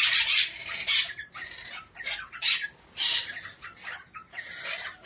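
Eastern rosellas giving a string of short, harsh squawks, about five loud calls spread over the few seconds with fainter chatter between them.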